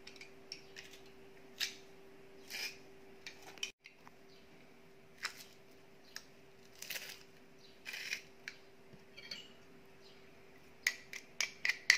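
Metal garlic press being squeezed and handled over a ceramic dish, with scattered clicks and scrapes. Near the end, a quick run of sharp metallic clinks as a spoon scrapes the pressed garlic off the press.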